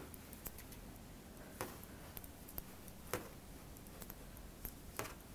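Faint, irregular clicks and taps of aluminium circular knitting needles as stitches are worked, a few sharper clicks standing out over a low hiss.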